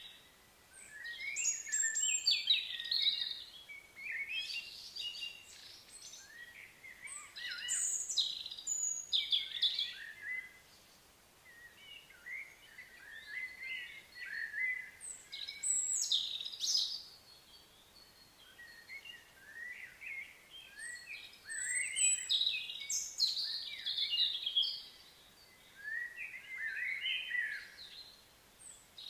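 Birds chirping and singing in bouts of quick high notes, with short quieter lulls between bouts.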